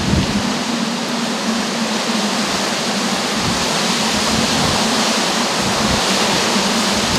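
Steady loud rushing noise of stormy weather, with a constant low hum underneath.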